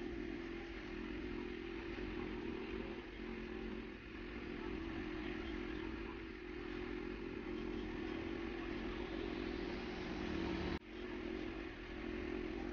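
Steady background hum with a constant low drone, briefly cut off about eleven seconds in.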